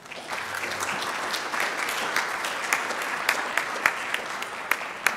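Audience applauding: a steady patter of many hands clapping with some louder single claps standing out, thinning out near the end.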